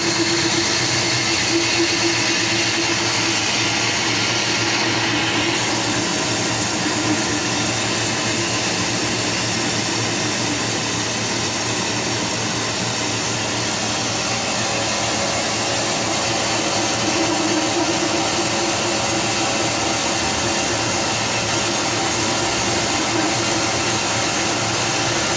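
Metalworking machinery running steadily, with a continuous hum and hiss; a brighter, hissier edge fades out about five seconds in.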